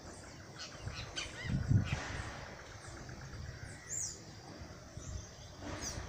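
Chestnut-capped blackbird (garibaldi) calling: a run of short high chirps in the first two seconds and a single high falling note about four seconds in. A low rumble on the microphone runs underneath and is loudest near two seconds.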